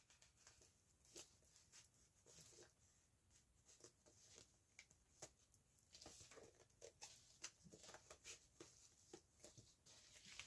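Near silence, with faint scattered taps and rustles of hands handling vinyl record packaging, growing more frequent in the second half.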